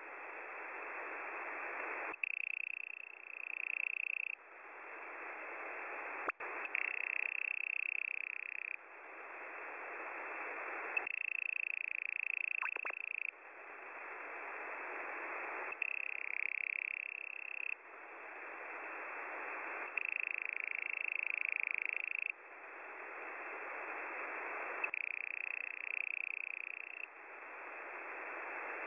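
Shortwave radio audio from an online SDR receiver in upper-sideband mode. Band-limited hiss alternates, about every two seconds, with a stretch carrying a strong, shifting high tone near the top of the passband. The cycle repeats every four to five seconds and the level builds through each stretch.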